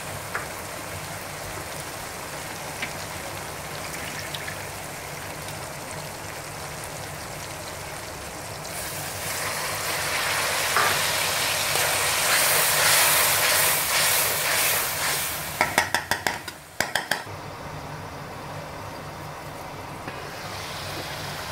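Onion-tomato masala sizzling and simmering in an aluminium kadhai with a little water just added, growing louder about a third of the way in. About three-quarters of the way through comes a quick run of metal clinks from the pan's lid going on, then a quieter simmer.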